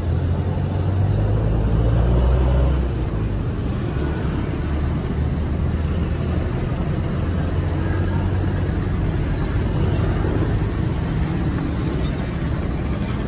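Steady low rumble of motor vehicle engines running, a little louder between about one and three seconds in.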